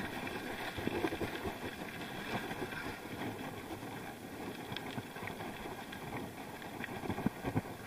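Bicycle riding on a rough dirt road: steady tyre and road noise with scattered small knocks and rattles, and wind on the action-cam microphone.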